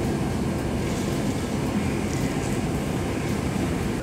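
Water being poured from a steel jug into a large metal cooking pot (daig) of fried potatoes, a steady rushing splash as water is added to make the curry's broth.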